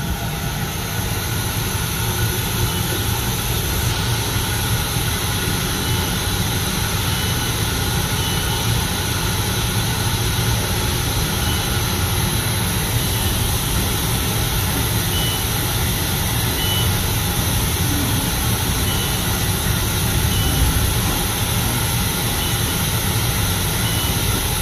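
Steady hum and whir of a Haas UMC five-axis CNC machining centre running a spindle-probe touch-off cycle, with a strong low rumble. Faint short high beeps sound every second or two.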